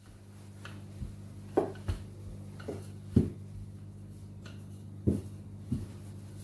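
Wooden rolling pin rolling out shortcrust pastry on a stone countertop: irregular dull knocks as the pin is pressed and pushed across the dough, over a steady low hum.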